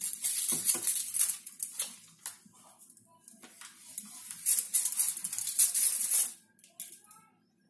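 Crinkly rustling with light clicks as something is handled, in two spells broken by a short lull about two seconds in, stopping about six seconds in.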